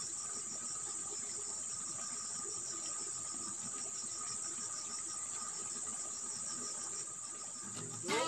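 Outdoor insect chorus, crickets among them: a steady high trill with a quicker, regularly pulsing chirp beneath it and a fainter steady tone lower down. Guitar music comes in right at the end.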